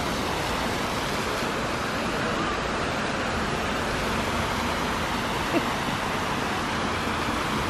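Fountain jets splashing into their pools: a steady rush of falling water. A short click about five and a half seconds in.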